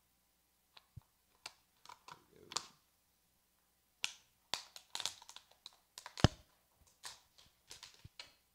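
Clear plastic water bottle crinkling and clicking as it is handled and a clothes-hanger wire is pushed through holes in it. The clicks are irregular and sharp, with the loudest about six seconds in.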